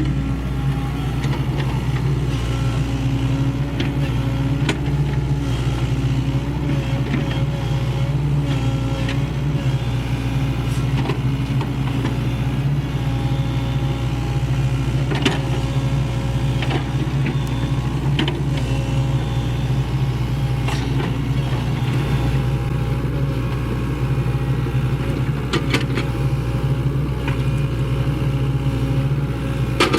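Diesel engine of a Sany SY75C excavator running steadily, with scattered short clicks and knocks over it.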